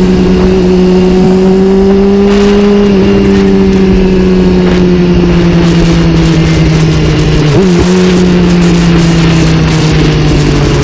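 An engine running at a steady speed, a loud drone whose pitch sinks slowly, with a brief wobble about three-quarters of the way through.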